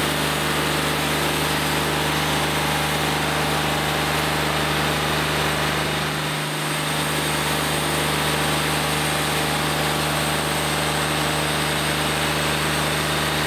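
Wood-Mizer LT40 hydraulic band sawmill's diesel engine running steadily at a constant pitch, with a brief dip in its low hum about six and a half seconds in.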